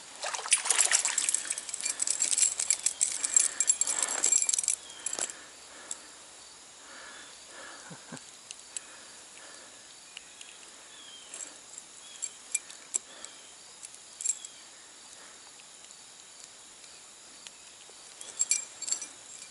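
Close, loud rustling and clicking handling noise for about the first five seconds, likely the angler handling a small brook trout and gear. It gives way to a quieter outdoor background with a steady high insect drone, faint chirps and scattered clicks, with a short burst of clicks near the end.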